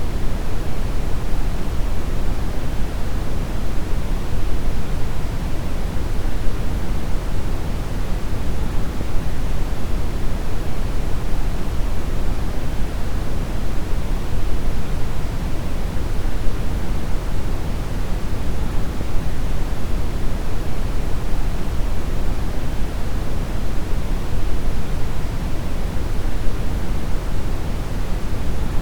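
Synthetic deep brown noise: a steady, even rumbling hiss, strongest in the low end and falling off toward the highs, with no changes or events.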